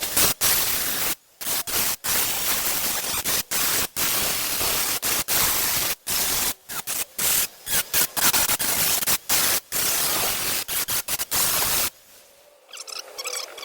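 Angle grinder grinding down welds on a car's rear sill: a loud, harsh hiss, broken by many brief gaps, that stops about twelve seconds in.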